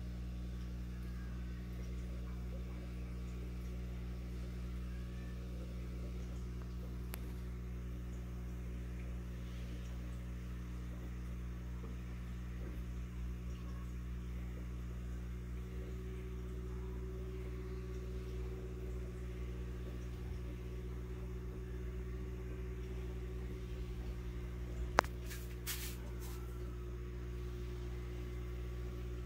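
Steady low electrical hum of running aquarium equipment, with a faint higher tone joining about halfway through. Near the end comes one sharp click, followed by a few fainter ones.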